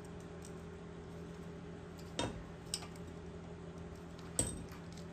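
Hand wire-crimping pliers clicking as they are worked and handled on heat-shrink butt connectors: three short sharp clicks, the loudest near the end, over a steady low hum.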